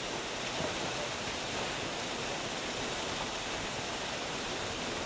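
Steady rush of a fast-flowing, flood-swollen river with a strong current.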